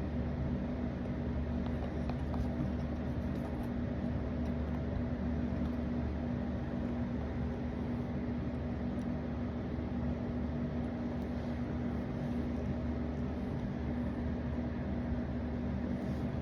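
Steady low mechanical hum that holds one unchanging tone throughout, with a faint even background hiss.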